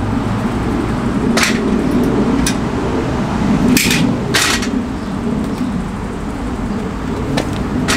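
A metal futon frame being folded down from couch to flat bed: a few sharp clicks and clunks from its hinge mechanism and slatted deck. The two loudest come close together about four seconds in. A steady low hum runs underneath.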